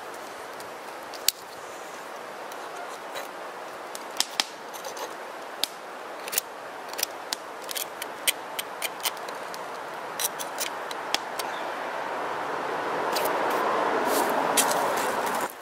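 Sharp metallic clicks and clacks of a pie iron's metal handles and hinged halves being handled and closed. Behind them is a steady rush of wind noise that grows louder near the end.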